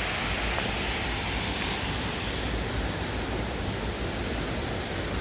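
Waterfall, its falling water making a steady, even rush.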